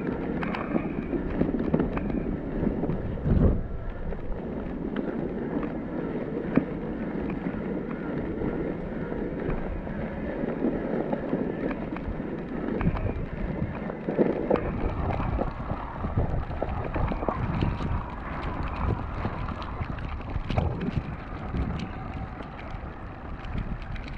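A Cannondale Moterra SE electric mountain bike riding through fresh snow: a continuous rush of tyre and wind noise on the microphone, broken by frequent small knocks and rattles as the bike goes over bumps.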